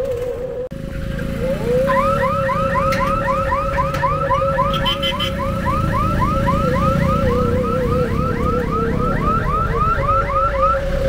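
Electronic alarm sounding rapid rising chirps, about four to five a second, over a steady wavering tone, with the rumble of motorcycle and car traffic beneath.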